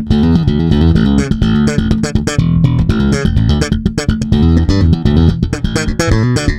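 Electric bass played slap style, thumb slaps and popped strings in a busy, percussive line, through a LeSuire Avalanche tube bass amp with a clean tone.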